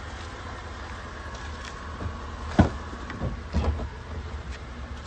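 A Chevrolet Avalanche's rear door being opened: the latch releases with a sharp click about halfway through, followed by a few lighter clunks as the door swings open. A steady low rumble runs underneath.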